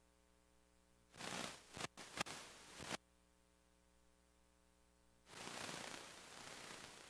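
Faint steady hum, then about a second in a burst of rustling, crackling noise with a few sharp clicks that cuts off abruptly; from about five seconds in a steady hiss of static.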